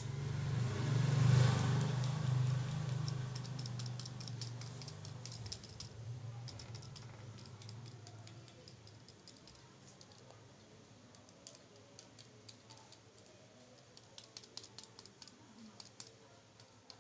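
Quick light clicks and taps in short clusters as a correction pen's tip is dabbed against the cut DVD-plastic petals of a handmade rose, putting on white dots. A low rumble swells about a second in and fades away over the next several seconds.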